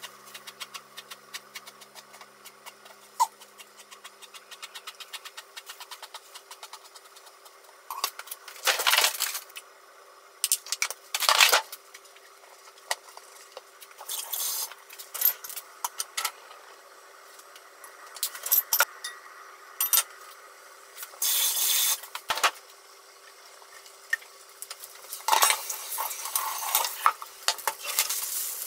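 Kitchen knife tapping rapidly and lightly on a wooden cutting board as it makes fine cuts in eggplant skin, then louder irregular clatters and rustles as the pieces are dusted with potato starch and handled. Near the end, eggplant pieces are laid into a frying pan.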